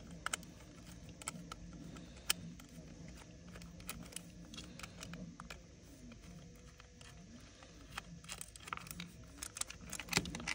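Faint scattered clicks and plastic handling noises as a small Phillips screwdriver backs out the tiny screws holding a Bose A20 headset's ear cup to its yoke, over a low steady hum.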